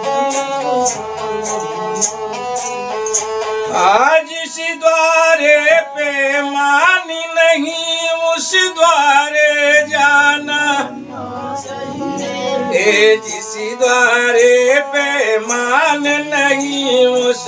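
Sarangi, a small bowed folk fiddle, playing a bhajan melody: steady repeated notes at first, then sliding, bending phrases from about four seconds in. A man's voice sings along in long drawn-out notes.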